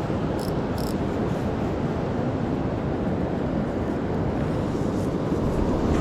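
Steady rushing of surf with wind buffeting the microphone. Two brief high ticks sound about half a second in.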